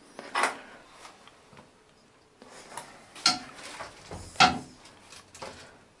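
A handful of short knocks and clatters of hard objects being handled in a small tiled bathroom, the loudest about four and a half seconds in.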